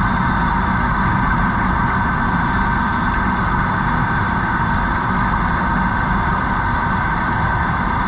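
Steady, unbroken mechanical drone heard underwater, engine-like, with no separate knocks or bursts.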